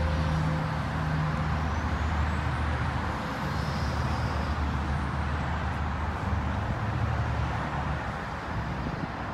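Road traffic: a motor vehicle's engine running with a steady low rumble over road noise, easing off a little near the end.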